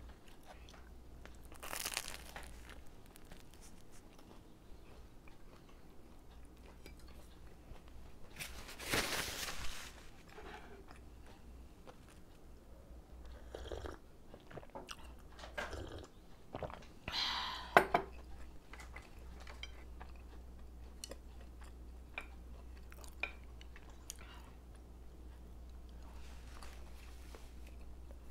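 Eating sounds: crunchy bites and chewing of a sesame-topped bun, in a few separate bursts, the longest about a third of the way in. A sip from a mug about halfway through, followed by a few sharp knocks.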